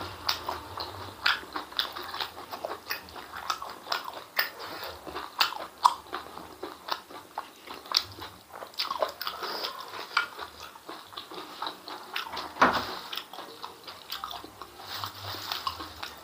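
Close-miked wet chewing and lip-smacking of a person eating rice and spicy rica-rica intestines by hand, with many irregular clicks. A stronger smack comes about twelve and a half seconds in.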